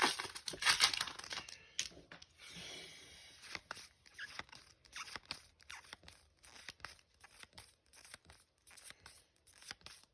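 A foil Pokémon booster pack wrapper tearing open, loudest in the first two seconds. Then come scattered soft flicks and slides of trading cards being leafed through.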